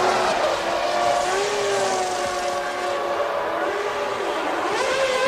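Formula One racing engines running at high revs, several pitched notes held close together. Near the end one engine note climbs and then drops back.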